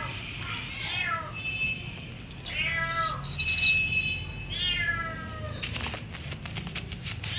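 Domestic cat meowing repeatedly: about four drawn-out meows that each fall in pitch, the loudest about two and a half seconds in. A few short clicks follow near the end.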